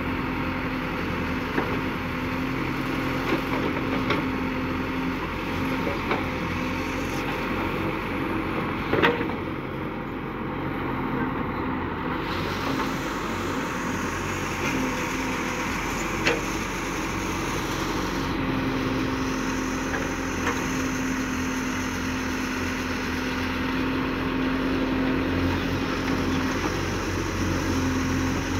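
Case backhoe loader's diesel engine running steadily while it digs and loads soil, with a few sharp clanks from the bucket and boom, the loudest about nine seconds in.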